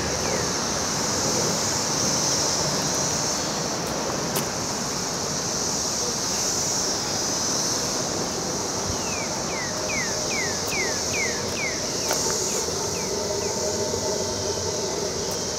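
Outdoor ambience: a steady high-pitched insect drone over a low background rumble, with a bird giving a run of quick falling chirps about ten seconds in.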